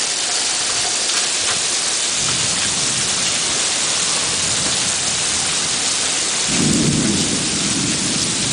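Heavy rain pouring steadily in a thunderstorm, with thunder rumbling from about two seconds in and a louder rumble of thunder about six and a half seconds in.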